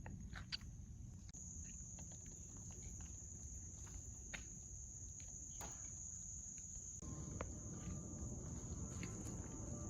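A steady high-pitched insect trill, starting about a second in and holding without a break, over faint scattered ticks and footsteps.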